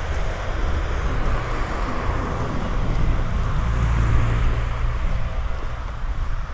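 A car passing by on a wet street, its tyre hiss and low rumble swelling in the middle and easing off near the end, over steady rain hiss.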